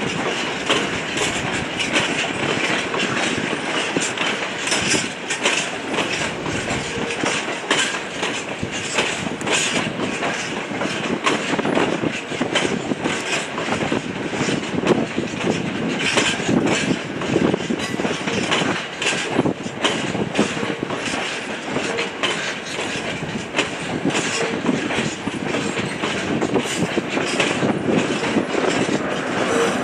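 A train passing at close range. Its wheels clatter over rail joints and pointwork in a steady run of clicks over a continuous rumble.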